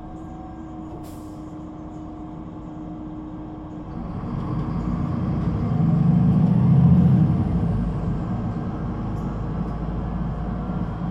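DAF diesel engine of a Solaris Urbino 18 III articulated bus with a Voith automatic gearbox, running with a steady low rumble. A brief hiss of air comes about a second in. After that the engine note swells for a few seconds and then eases off.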